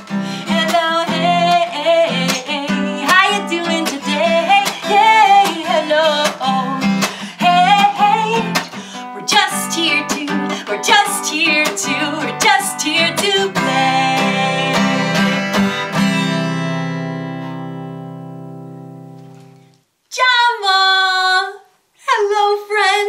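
A woman singing to her own strummed acoustic guitar. The song ends with a final chord that rings out and fades away over about four seconds. After a short gap, her voice comes in twice briefly.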